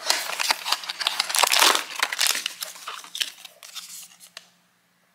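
Blind box being opened by hand: the cardboard box flaps and the foil bag inside crinkle and tear, loudest in the first two seconds and dying away about four seconds in.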